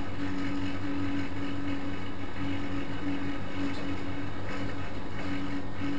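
Vintage washing machine running: a steady motor hum with a low tone that wavers slightly.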